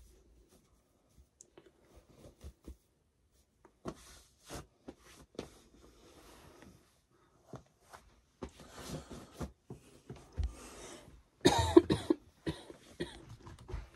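Hands scrunching and patting cream into wet curly hair: a run of short wet squishes and rustles, sparse at first and getting denser in the second half, loudest about three quarters of the way through.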